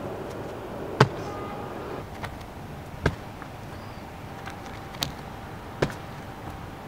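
Sharp impacts of a parkour runner's feet landing and pushing off on concrete walls and ground, four distinct hits, the loudest about a second in, over steady outdoor background noise.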